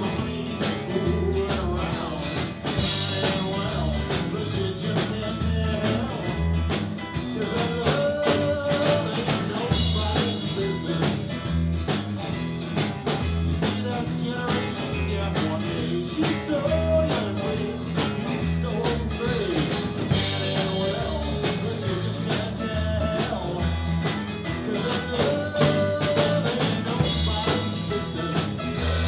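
Live blues band playing on a steady beat: electric bass, electric guitar and drum kit, with a man singing into the microphone.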